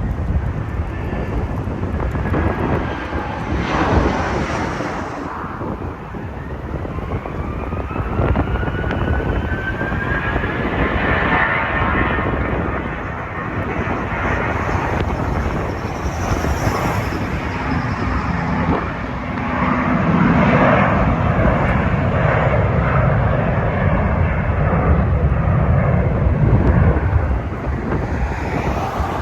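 Jet airliner passing: a turbine whine rising in pitch, then a loud low rumble about two-thirds of the way in. Strong wind buffets the microphone.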